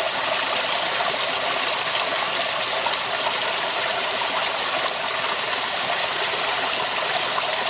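A stream of water running steadily, an even rushing with no breaks.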